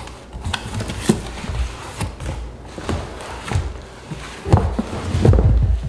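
Cardboard shipping box being unpacked: flaps pulled open, plastic wrapping crinkling, and the wrapped pot lifted out, with scattered knocks and thuds that are heaviest near the end.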